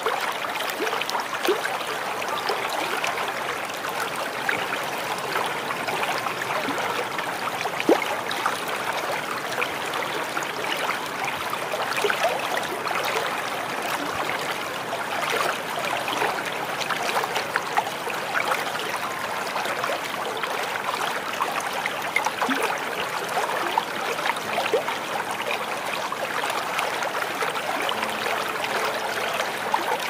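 Small waterfall: water splashing and trickling steadily, an even rush dotted with many small splashes.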